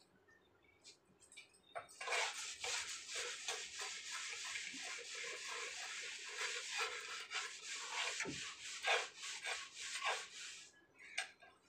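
Rapid back-and-forth scrubbing of a soaped surface with a mesh scouring pad, starting about two seconds in and stopping near the end.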